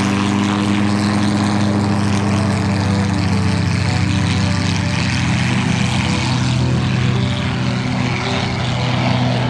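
Antonov An-2 biplane's nine-cylinder radial engine at high power with its propeller, a steady deep drone as the plane accelerates on its takeoff run.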